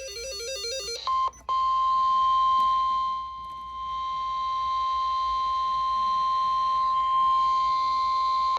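Brief electronic keyboard music, then a NOAA Weather Radio warning alarm tone: a single steady 1050 Hz beep that starts about a second in and breaks off for a moment just after it begins. It is the alert tone that announces a warning broadcast.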